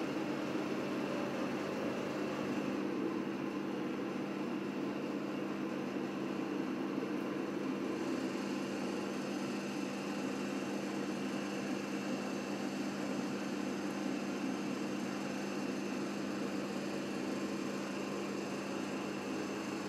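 Steady mechanical hum with a constant low tone, unchanging throughout.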